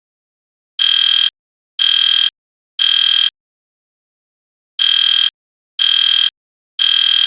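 EST Genesis fire alarm horn sounding the code-3 (temporal-3) evacuation pattern: three half-second blasts about a second apart, a pause, then three more. This is the standard signal to evacuate the building.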